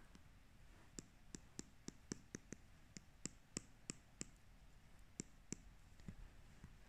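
Faint, light clicks of an Apple Pencil's plastic tip tapping on an iPad's glass screen, about fifteen irregular taps, some in quick runs of three or four a second.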